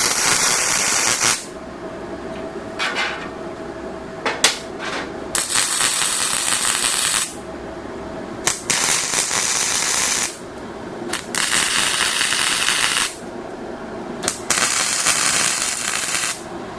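Welder tack-welding the tubing of a go-kart frame: five bursts of welding arc crackle, each one to two seconds long, with a steady hum and a few clicks between them.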